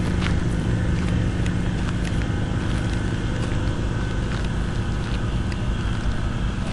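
An engine idling steadily, with a constant low hum and scattered faint clicks over it.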